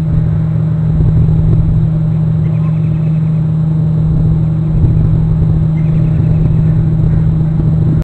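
Steady loud rumble with a constant low hum, the wind and line noise of an outdoor wildlife camera's microphone. Three faint short runs of high notes come through it, about three seconds apart.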